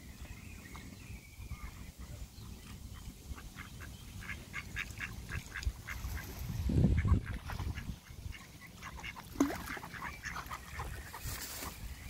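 Mallard ducks quacking: a quick run of short calls in the middle, then scattered calls, one of them a short falling call. A brief low rumble about seven seconds in.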